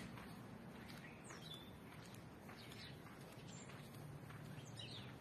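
Faint bird chirps: a few short high calls, about a second in and again near the end, over a low steady hum.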